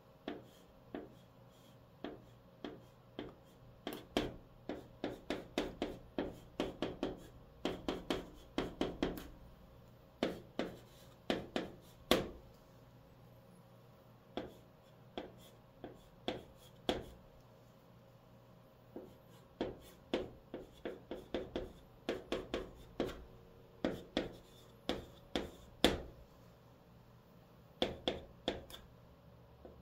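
Chalk writing on a chalkboard: quick clusters of short tapping and scraping strokes as hanja and Korean characters are written, with brief pauses between characters.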